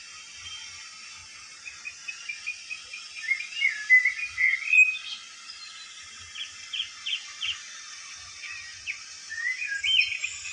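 Birds chirping: several runs of short, quick rising and falling notes over a steady hiss.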